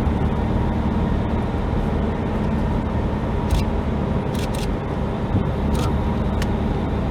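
Air-cooled Volkswagen flat-four engine running steadily with road noise, with a few short sharp clicks or rattles over it in the middle.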